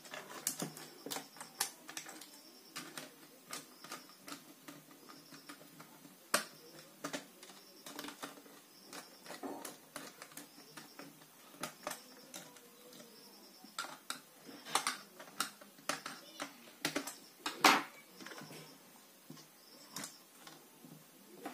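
Irregular small clicks and taps of a screwdriver on the terminal screws of plastic electrical switches on a wooden wiring board, with wire being handled and fitted; the loudest click comes late.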